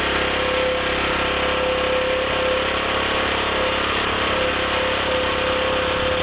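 Small gasoline generator engine running steadily, with a constant hum over its drone. It has run out of gasoline supply and is running on the fuel left in the carburettor float bowl, with HHO gas from an electrolyser fed in.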